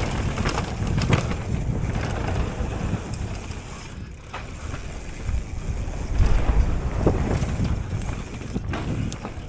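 Wind buffeting an action camera's microphone: a low, gusting rumble that swells and fades, with a few sharp clicks.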